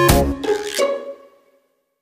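Electronic background music with a steady beat; its last notes ring out and fade away about a second in.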